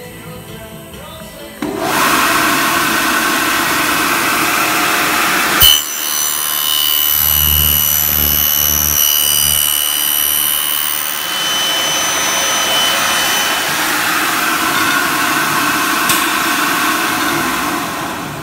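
Graule AKF6/250 end milling machine starting up and running, its milling cutters cutting into the end of an aluminium profile. A sudden knock comes about six seconds in, followed by about five seconds of cutting with a high, steady whine and low pulsing; the machine then runs on steadily and dies away near the end.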